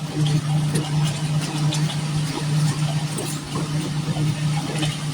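Concrete mixer truck's diesel engine running steadily, driving the drum as it discharges concrete down the chute, with scattered light knocks and scrapes over the hum.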